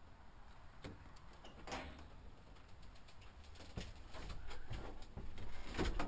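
Plastic portable toilet door being opened and handled on the way in: scattered clicks, knocks and rustles from the door, latch and plastic walls, the loudest knocks near the end.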